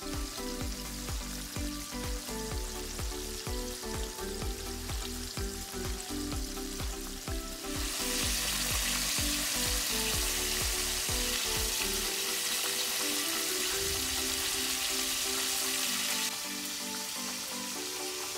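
Chicken pieces deep-frying in hot oil: a steady hiss of sizzling that comes up loud about eight seconds in and falls back near the end.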